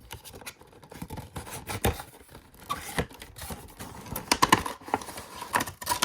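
A textured cardboard doll box and its packaging being handled and opened: scratching and scraping with many light clicks and taps.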